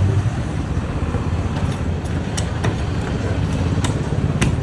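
A large knife chopping and slicing fish on a wooden log block: a heavy thud at the start, then a handful of sharp knocks and clicks from the blade. Under it, a steady low rumble of motor-vehicle noise.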